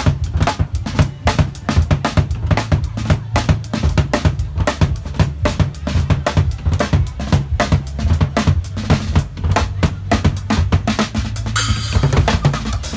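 A Tajon drum box, a compact drum-box kit with snare, tom and bass drum, played in a steady groove: quick snare and tom strikes over a deep bass-drum beat, with a brief hissing roll near the end.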